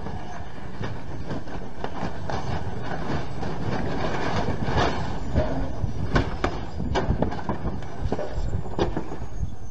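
CH-47 Chinook tandem-rotor helicopter tearing itself apart on the ground: a steady rotor and engine rumble with repeated clattering bangs as the rotor blades strike and break up. From about halfway, a thin turbine whine slowly falls in pitch.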